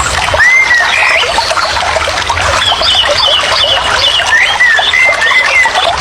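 Nature soundscape of steady rain with birds calling over it: short arching whistles and chirps repeating every second or two.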